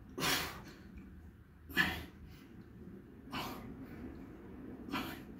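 A man's sharp, forceful exhales, four of them about a second and a half apart, one with each repetition of a dumbbell side bend.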